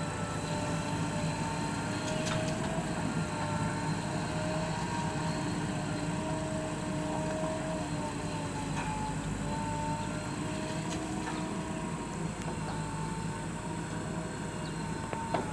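JCB backhoe loader's diesel engine running steadily, a wavering hum over a low rumble, with a few faint knocks.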